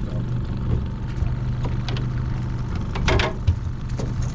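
Boat outboard motor running steadily at trolling speed, a low even hum, with scattered knocks on the boat and a short scraping rattle about three seconds in.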